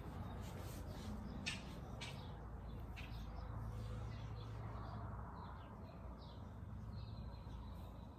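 Birds chirping faintly over a low steady outdoor rumble, with a few short sharp clicks about a second and a half, two seconds and three seconds in.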